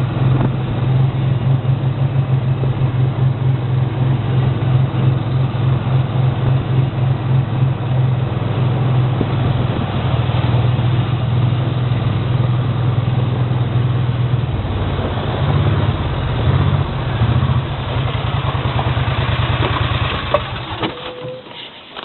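A machine running with a steady, low, pulsing hum, which dies away near the end.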